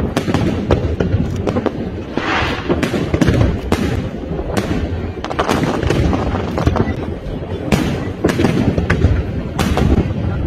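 Aerial firework shells bursting in quick succession: a dense run of bangs over a continuous low rumble of booms. A brief hiss comes about two seconds in.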